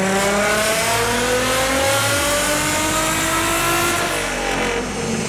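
Toyota 1JZ inline-six in a Lexus IS300 pulling at full throttle, its revs climbing in one even rise for about four seconds, then dropping off as the throttle is released near the end: a dyno tuning pull.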